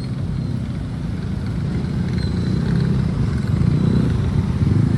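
Low vehicle rumble growing steadily louder.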